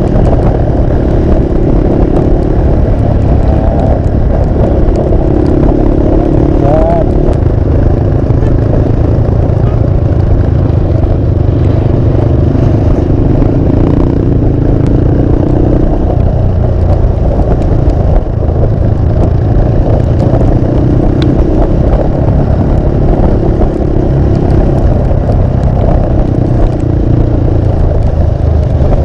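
Motorcycle being ridden at light throttle, its engine note swelling and easing every few seconds under a heavy rush of riding wind on the microphone.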